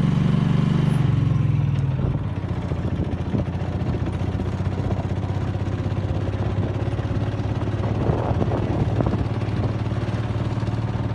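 Vehicle engine running steadily while driving, with road noise. The engine note drops and gets a little quieter about two seconds in, then holds steady.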